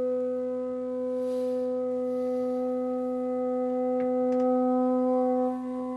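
One long, steady blown horn note held for several seconds at a single pitch, growing a little louder before easing off near the end.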